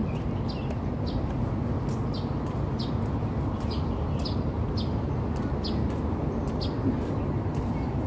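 Steady low rumble of outdoor city-park ambience, with short high ticks repeating about twice a second.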